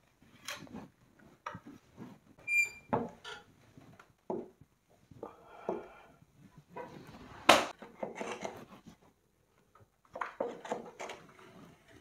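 Steel plastering trowel and spatula scraping and clinking while gypsum plaster is spread and smoothed along a window reveal. There is an irregular run of scrapes and taps, a short ringing metallic ping about two and a half seconds in, and a sharp knock, the loudest sound, about seven and a half seconds in.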